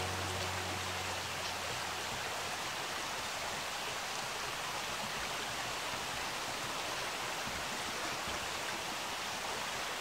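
Shallow stream running over rocks, a steady even rush of water.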